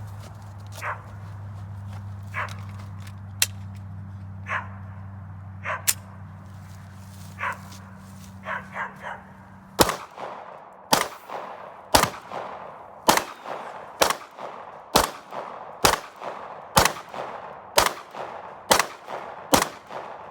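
A Smith & Wesson SD9 2.0 9mm pistol fired in slow, steady succession, about eleven shots roughly a second apart, starting about halfway through. Before the shooting there is a steady low hum, and a dog barks a few times.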